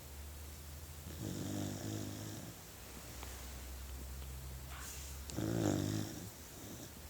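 Beagle puppy snoring in its sleep: two pitched snores, one about a second in and a louder one just after five seconds.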